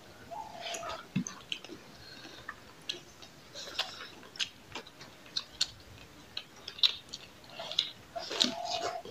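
Close-up eating sounds of people eating rice and curry by hand: irregular wet lip smacks and chewing, and sticky clicks of fingers working the rice.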